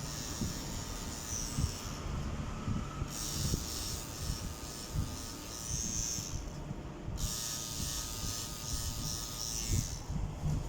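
Tattoo machine running with a steady mechanical buzz that cuts out for about a second a few times, with soft handling bumps underneath.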